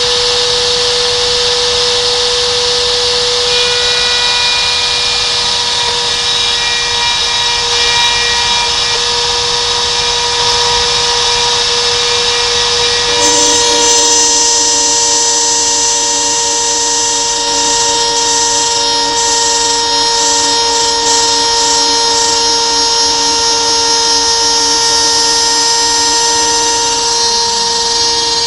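Homemade CNC milling machine running, its spindle and cutter giving a steady whine over a rushing noise. About 13 seconds in the sound changes abruptly and new steady tones join in.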